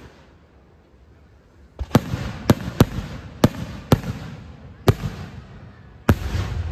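Fireworks going off: about seven sharp, uneven bangs starting about two seconds in, with crackling between them.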